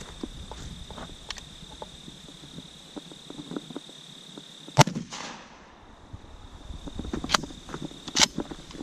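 A single shot from a Remington 870 pump-action 12-gauge shotgun firing a birdshot shell, a sharp blast about halfway through with a brief ringing decay. Two smaller sharp clicks follow near the end.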